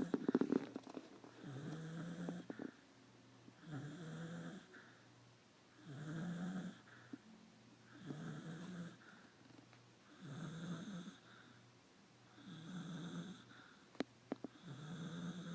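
A beagle snoring in its sleep, a short snore on each breath, about every two seconds. The first snore, at the start, is the loudest, and there is a single sharp click near the end.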